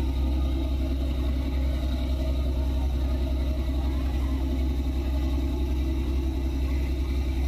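A moored fishing boat's engine running at idle with a steady deep rumble and an even, fast pulse.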